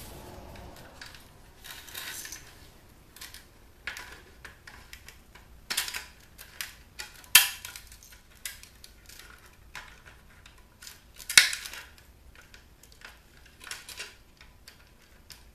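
Irregular clicks, knocks and clatter of hard plastic and metal parts being handled, pulled apart and set down while a small 12-volt travel cooler is dismantled by hand, with two louder knocks about seven and eleven seconds in.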